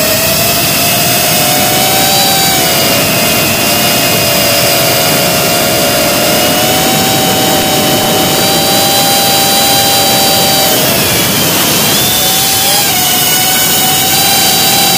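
GEPRC CinePro 4K cinewhoop's brushless motors and propellers whining in flight, heard through the onboard camera's microphone over a steady hiss. The pitch shifts with the throttle: it dips about eleven seconds in, climbs back, and drops again near the end.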